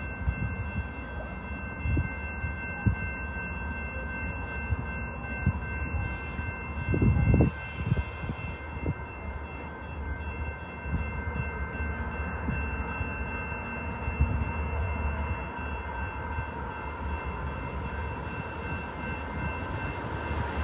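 Approaching BNSF freight train led by two diesel locomotives: a low, steady rumble, with several thin steady high tones held throughout and a brief louder bump about seven seconds in.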